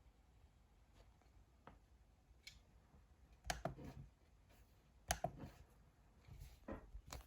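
Near silence with a faint steady hiss from an S740 laptop's cooling fan running while the laptop is in sleep mode. A few sharp clicks and knocks break it, the loudest about halfway through.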